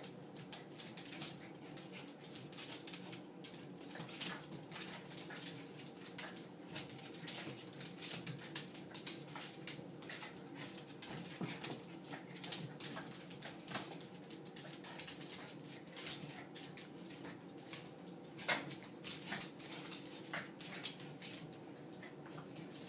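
Two small dogs play-wrestling on a hardwood floor: scuffling, with many quick clicks of claws on the boards and soft dog vocal noises mixed in.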